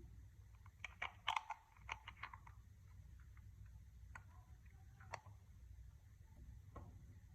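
Clear slime being worked by hand, giving soft sticky clicks and crackles: a quick cluster about a second in, then a few scattered clicks.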